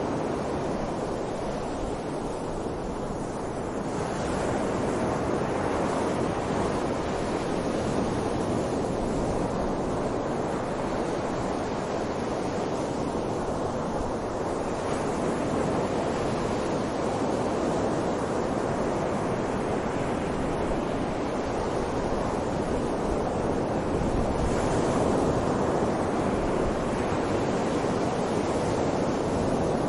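Strong wind blowing steadily, a low, even rush that swells and eases slowly every few seconds.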